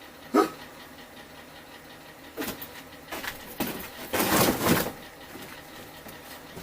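Workshop handling noises from fitting parts onto a motorcycle frame: a sharp knock about half a second in, a few short scrapes, then a louder rustling scrape lasting nearly a second past the middle.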